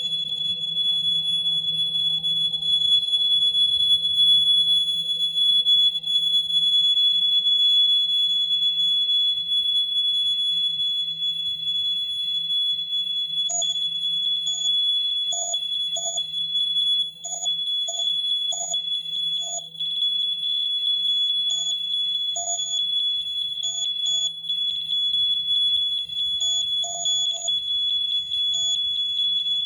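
Electronic noise-music performance: a steady high-pitched alarm-like tone held throughout over a low hum. About halfway through, short irregular stuttering blips join in.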